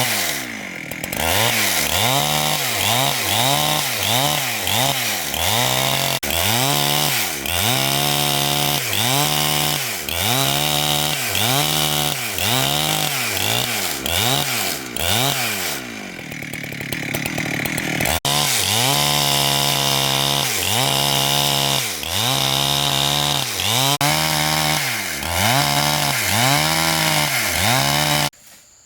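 Two-stroke chainsaw cutting wood, its engine revving up and down about once a second. About halfway through it drops back lower for a couple of seconds, then picks up again, and it cuts off abruptly near the end.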